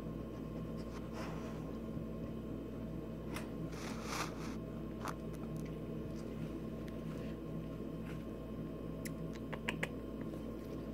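A dog licking and nibbling at its paw and fur, short wet rustling sounds every second or so, with a few sharp clicks near the end, over a steady low hum.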